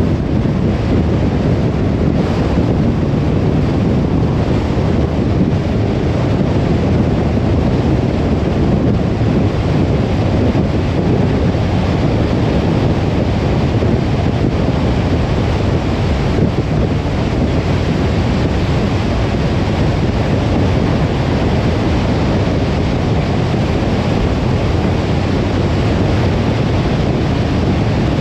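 Steady road and wind noise of a car driving at speed, heard from inside the cabin: an even low rumble with no change in level.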